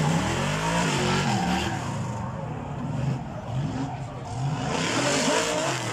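Drift car's engine revving up and down again and again as it slides, with tyre screech near the start and again near the end.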